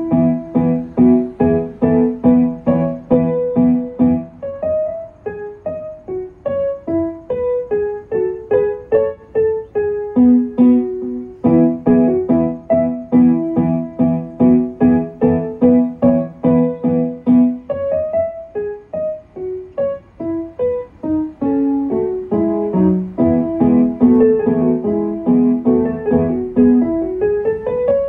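Digital piano keyboard playing a lively piece in a steady pulse: repeated low chords under a moving melody, the chords dropping out for a few bars at times, ending with a quick rising run.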